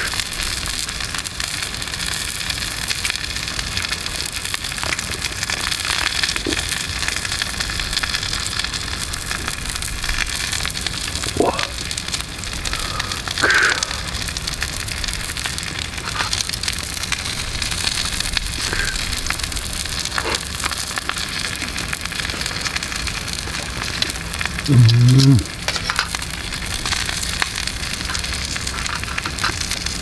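Thick steak sizzling in a skillet set on a wood campfire, with the fire crackling in scattered small pops. A man's brief low voiced sound is the loudest thing, about 25 seconds in.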